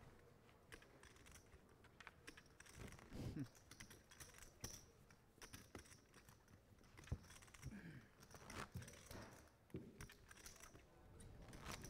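Faint, scattered clicking of poker chips being handled at the table, with a few low murmured words.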